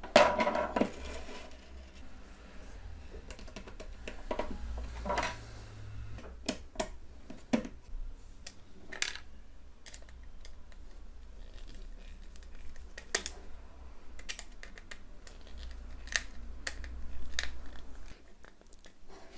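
Hand work on a plastic power strip: small plastic parts handled and clicked into place, then a screwdriver turning the screws of the cord clamp. The sound is scattered small clicks and scrapes, with louder handling noise in the first second.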